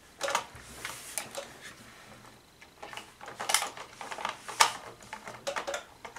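Irregular clicks and taps of hard plastic toy parts being handled and fitted together, with a few louder knocks about three and a half and four and a half seconds in.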